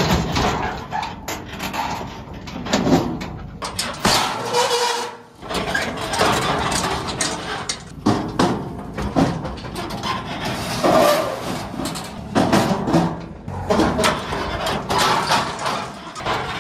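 Empty steel car-hauler trailer rattling and clanking as it is towed over rough, rocky ground, with a steady run of irregular knocks and bangs from the deck, ramps and hitch.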